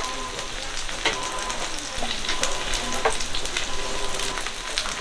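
Oil sizzling and crackling as jeon (pan-fried battered patties) fry on a griddle, a steady hiss with many small pops. Two sharper clicks come about one second and three seconds in.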